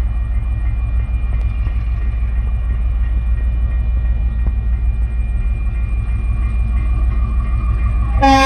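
TasRail 2010 diesel-electric locomotive pulling an empty ballast train away at low speed: its engine gives a steady, low pulsing rumble with a faint steady whine above it. Near the end the locomotive's horn starts to sound, a loud chord of several tones.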